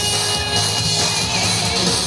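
Yosakoi dance music from a nonstop group-dance medley, playing loud and continuous.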